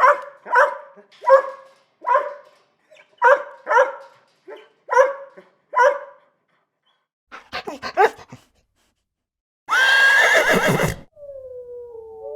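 Dog barking in a steady string of about a dozen barks, followed by a short rapid burst of calls. Then a horse neighs loudly for just over a second, and near the end a smooth, falling howl begins.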